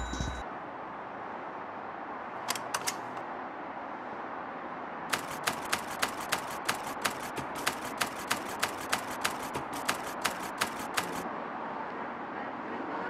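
Typewriter keystrokes clacking one at a time over a steady hiss. A short bell ding with a thud comes right at the start, like a carriage return; a few keystrokes follow about two and a half seconds in, then a run of some twenty at roughly three a second.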